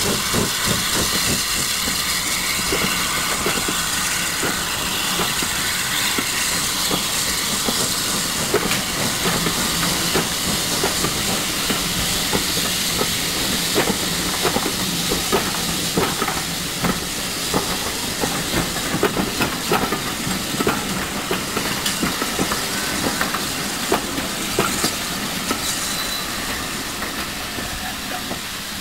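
Steam tank locomotive on the move, with a steady hiss of escaping steam and a scatter of clicks and knocks from wheels and rolling stock on the track, fading a little near the end.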